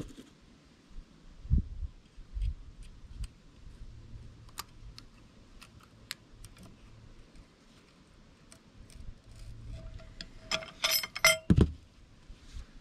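Small metallic clicks and clinks of valve keepers and a lever-type valve spring compressor being worked on a cylinder head. Near the end comes a quick run of ringing metal clinks, then a low thump.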